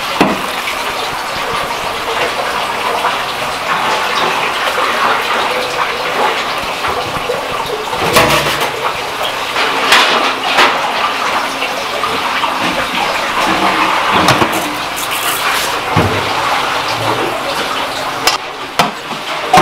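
Water running steadily from a kitchen tap, with a few short knocks and clinks now and then.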